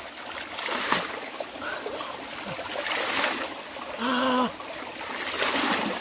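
Stream water scooped up with a plastic scoop and splashed out in three surges, about one, three and five and a half seconds in, over the steady trickle of a small rocky stream. A short vocal exclamation comes about four seconds in.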